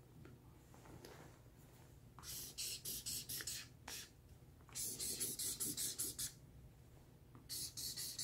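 Felt-tip marker scratching across flip-chart paper in quick zigzag strokes, drawing spiky lines. It begins about two seconds in and comes in three runs of short rapid strokes.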